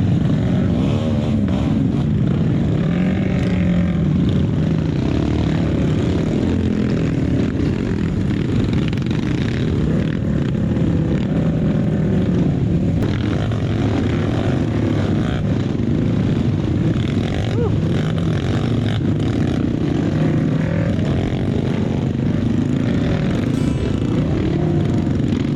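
Off-road trail motorcycle engine under way, its revs rising and falling repeatedly as the bike is ridden.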